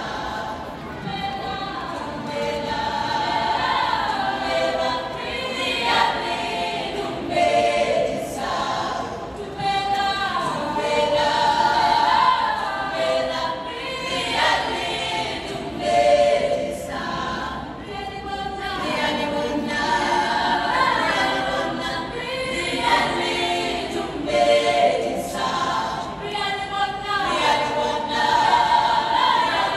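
A choir singing, with several voices in harmony.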